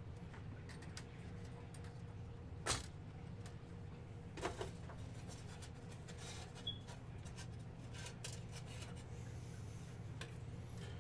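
Hands handling and fitting parts back into an opened laptop: scattered small clicks and taps, the sharpest about a quarter of the way in and a couple more near the middle.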